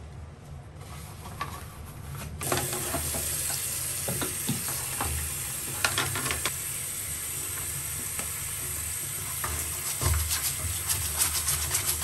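Tap water starts running about two seconds in and runs steadily over a plastic air-conditioner filter, with scattered clicks and knocks as the filter is handled and rinsed.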